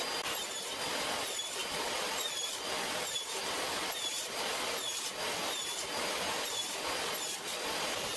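Portable jobsite table saw ripping strip after strip from a wooden board, in a quick regular run of cuts. The blade's pitch dips and recovers with each cut, about every three-quarters of a second.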